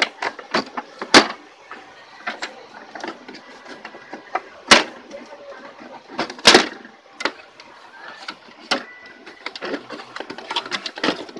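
Irregular plastic clicks and knocks of an HP Deskjet GT 5810 inkjet printer's casing and scanner unit being handled as the scanner unit is lifted off, with a few louder knocks among them.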